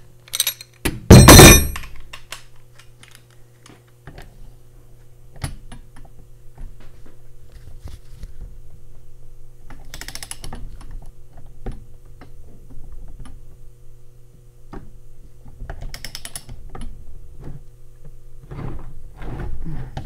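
Hand tools knocking and clicking against a VW gearbox case and a workbench while bolts are fitted, with one loud metal clank about a second in and two short runs of rapid clicking later on. A steady low hum runs underneath.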